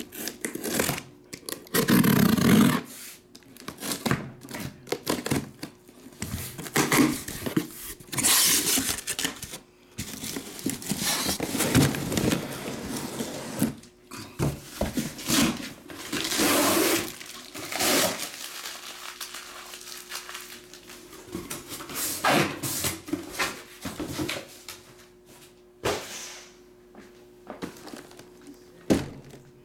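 A sealed cardboard shipping case of trading card boxes being opened and unpacked: tape tearing, cardboard flaps rustling and scraping, and boxes sliding and bumping against each other in irregular bursts.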